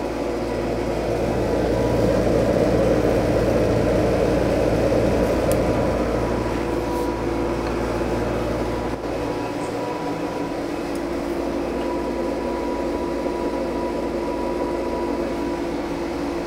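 Coke fire in a blacksmith's forge under its air blast, a steady roar with a faint steady hum, as a bundle of steel bars is brought up to forge-welding heat. The deepest part of the rumble drops away about halfway through.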